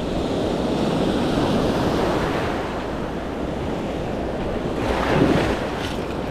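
Small breaking waves and foamy surf washing over the sand in shallow water, with wind on the microphone. A brief louder rush comes about five seconds in.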